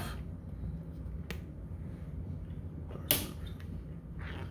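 Test-lead alligator clips being unclipped from a generator cutout's terminals: a faint click about a second in and a sharper click about three seconds in, over a steady low hum.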